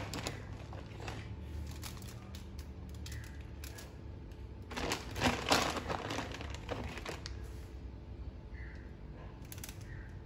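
Grated cheese sprinkled by hand onto stuffed mushroom caps in crinkly aluminium foil: light pattering and foil crinkling, busiest for about two seconds around five seconds in. A low steady hum underneath.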